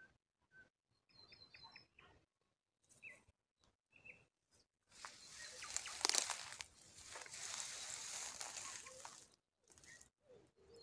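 Songbirds chirping and whistling faintly in short, scattered notes, with a rushing noise from about five to nine seconds in that is the loudest sound.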